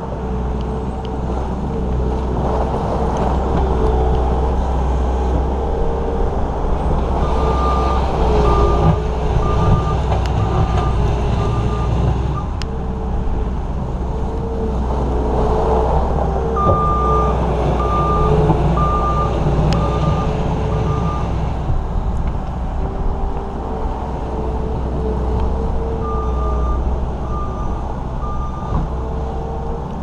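New Holland L230 skid steer's diesel engine running steadily under work, with its reverse alarm beeping about once every three-quarters of a second in three separate runs as it backs up.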